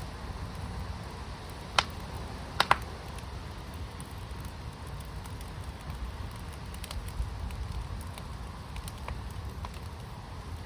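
Wood fire burning in a firepit, crackling softly over a steady low rumble, with three sharp pops: one just under two seconds in and two in quick succession just after.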